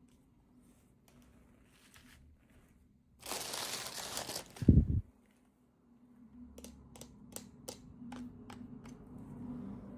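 Packaging being crinkled and torn open: a loud rustling tear lasting about a second, then a short low thump, followed by a series of small sharp clicks and taps as the package is handled.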